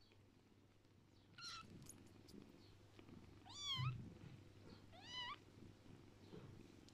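Young kittens, about two weeks old, mewing faintly while they jostle to nurse on their mother. There are three short high mews about a second and a half apart, the last two rising then falling in pitch, over soft rustling of fur with a soft thump in the middle.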